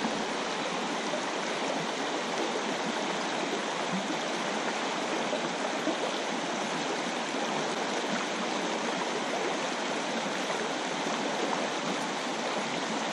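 Shallow river rushing over a stony riffle: a steady rush of running water.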